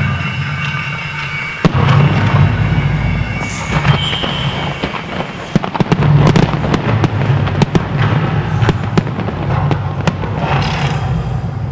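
Aerial fireworks going off: one sharp bang about a second and a half in, then a dense run of shell bursts and reports from about five to ten seconds in.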